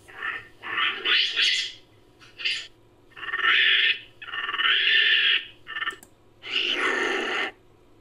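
Homemade sound-effect calls for an imagined long-tailed macaque: a string of about eight hoarse, monkey-like hoots and screeches, mostly short, with longer drawn-out calls near the middle and near the end.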